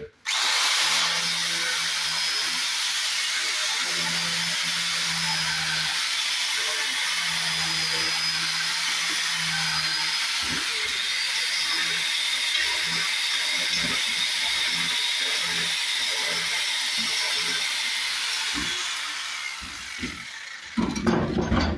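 Handheld power tool grinding into brick, a steady hissing cut that runs down and stops near the end, followed by a few knocks.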